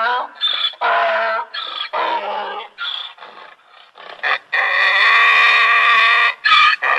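Donkey braying: a run of short see-sawing hee-haw calls, then one long drawn-out call about four and a half seconds in.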